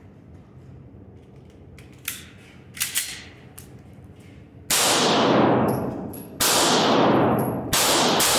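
Pistol shots on an indoor range: three loud shots about a second and a half apart, each ringing on long off the walls. A few quieter sharp cracks come before them.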